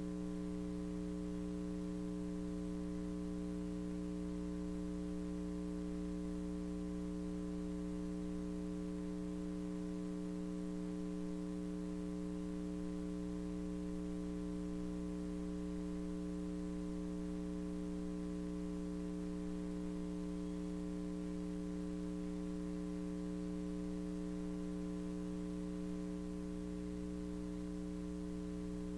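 Steady electrical mains hum in the audio line, a low buzz made of several unchanging tones, with no other sound over it.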